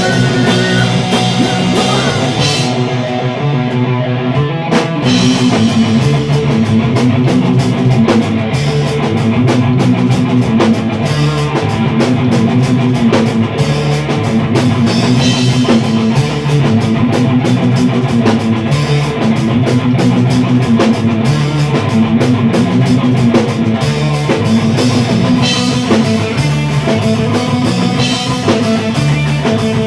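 Rock band playing an instrumental passage: electric guitar, bass guitar and drum kit. About three seconds in the cymbals drop away for a moment, then the full drum beat comes back in.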